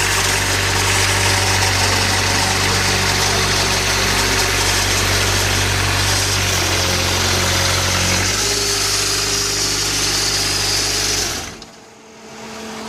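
Engine of a homemade articulated Ventrac-style tractor running steadily as the tractor drives. The engine note changes about eight seconds in, and the sound drops off abruptly near the end, leaving a quieter hum.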